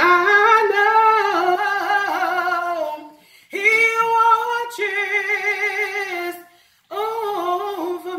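A woman singing a gospel hymn solo and unaccompanied, in three long phrases of held notes with a wide vibrato. There are short breath pauses about three seconds in and again near seven seconds.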